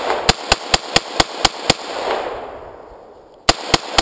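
AR-15 rifle firing a fast string of about seven semi-automatic shots, roughly four a second, with a rolling echo between them. After a pause of under two seconds a second quick string starts near the end. It is rapid semi-auto fire from a trigger trick meant to mimic full auto, which doesn't work.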